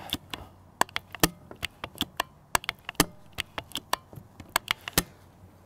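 A rapid, irregular series of sharp clicks, several a second, from working the forward sidelever cocking mechanism of a Kalibrgun Cricket II .22 PCP bullpup air rifle.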